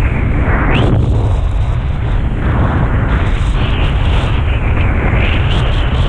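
Strong wind buffeting the microphone: a loud, steady low rumble with surges of rushing noise that rise and fall every second or two.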